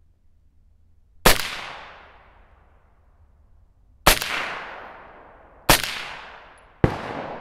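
Four single shots from a suppressed Sig Sauer MCX Virtus pistol, fired at an uneven pace over several seconds. Each shot is a sharp crack followed by a long fading echo.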